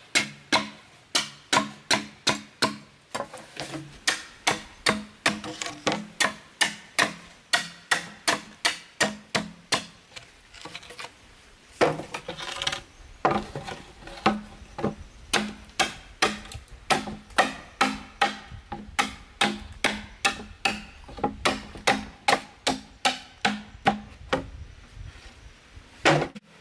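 Machete chopping into green bamboo: sharp, hollow-ringing strikes at a steady rhythm of about two a second, with a short break about halfway through.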